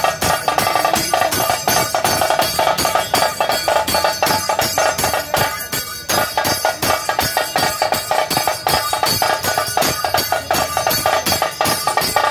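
Dhol-tasa band drumming: rapid, unbroken rolls on tasa kettle drums struck with sticks, over the beat of large barrel drums.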